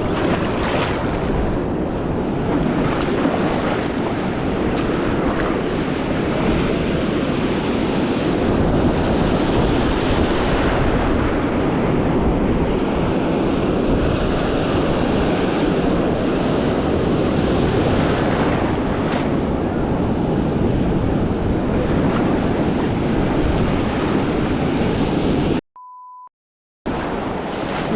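Surf breaking and wind buffeting the microphone as a steady rushing noise. Near the end the sound cuts out for about a second, with a short beep inside the gap.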